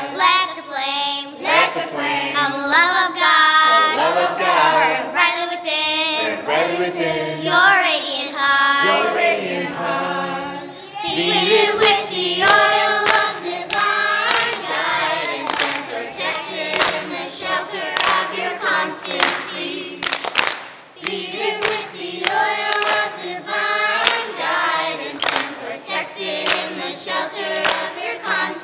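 Children's choir singing a devotional song, several voices together; from about halfway through, quick sharp hand claps join the singing.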